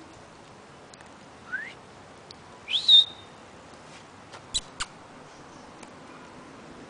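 A person whistling to call a dog: two short rising whistles, the second sliding higher and held for a moment, followed by two quick sharp clicks.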